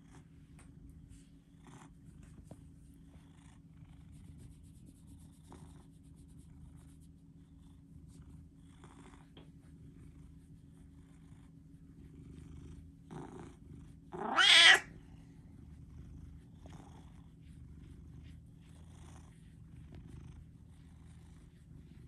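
Domestic cat purring steadily while being stroked and scratched under the chin, a sign of contentment. About two-thirds of the way through there is one short, louder call.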